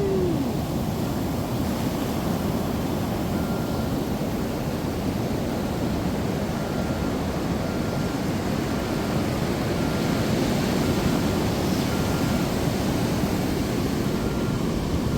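Ocean surf breaking on the beach: a steady rushing wash that swells slightly a little past the middle.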